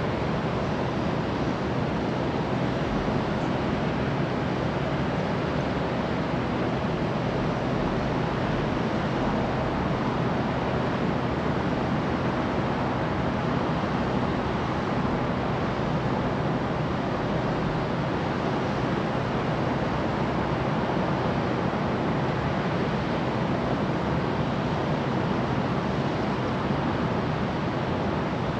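Steady rushing wind noise buffeting the microphone, unbroken throughout.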